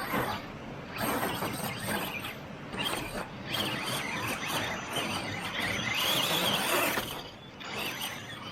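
Rock bouncer buggy driven hard on the wet course, its engine revving up and down in swells.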